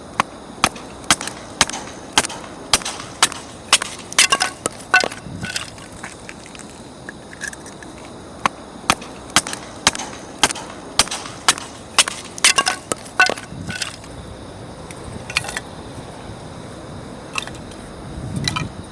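Batoning firewood: a knife spine struck again and again with a wooden baton to split the wood, sharp wooden knocks about two a second, with a pause in the middle and only a few strikes near the end.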